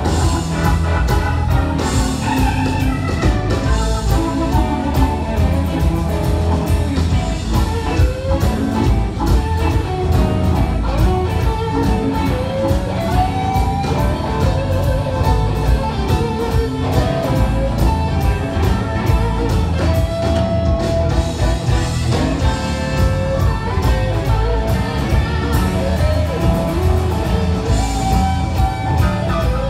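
Live blues-rock band playing loudly: electric guitars with gliding, bent notes over drums and bass, with keyboard in the mix.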